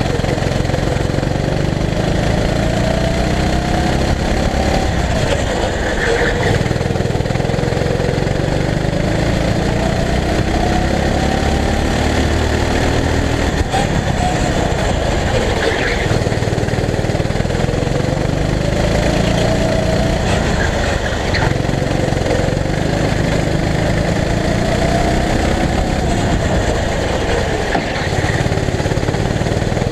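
Go-kart engine heard onboard while racing, its pitch climbing in long sweeps on acceleration and dropping sharply each time the throttle is lifted for a corner, several times over.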